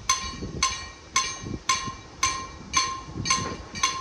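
KLD-4013 level-crossing warning bell ringing about twice a second, each strike a metallic ring that fades before the next, over the low rumble of a rail vehicle passing over the crossing.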